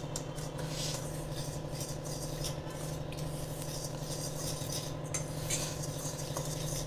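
Wire whisk stirring a dry flour and semolina mix in a stainless steel bowl: soft scraping with light clinks of the wires against the steel. A steady low hum runs underneath.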